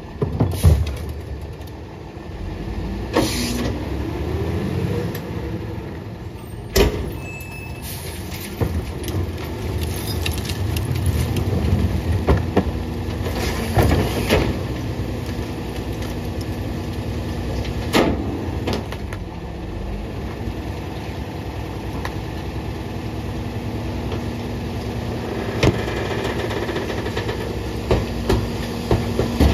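Peterbilt 520 Heil rear-loader garbage truck packing a heavy load: the hydraulic packer blade cycles with a steady engine and hydraulic hum, and a few loud bangs and knocks come from the hopper as the bags are compacted.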